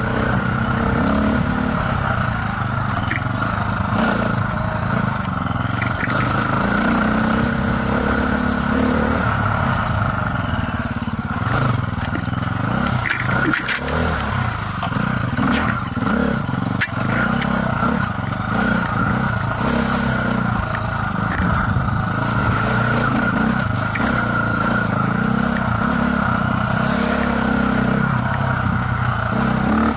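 Dirt bike engine running as the bike is ridden along a trail, the revs rising and falling with the throttle. A few sharp clicks and scrapes come through near the middle.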